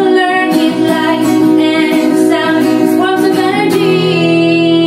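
A woman singing a children's science song, the lyric running '...heat, light and sound as forms of energy', with acoustic guitar accompaniment. About three and a half seconds in she settles onto a long held note.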